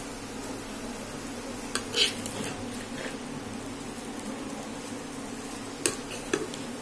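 Spatula stirring and tossing noodles in a non-stick pan, with a few short scrapes and clinks against the pan about two seconds in and twice near the end, over a steady low hum.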